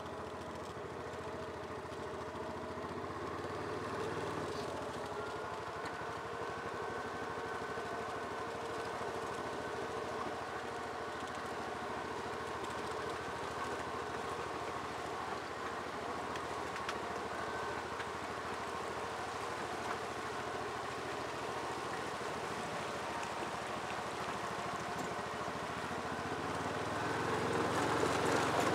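Yamaha Rhino side-by-side's engine running steadily at low speed, heard from the seat. It grows louder near the end.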